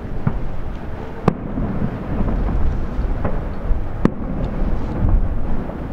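Aerial firework shells bursting: a run of sharp bangs about once a second, two of them louder than the rest, over a continuous low rumble.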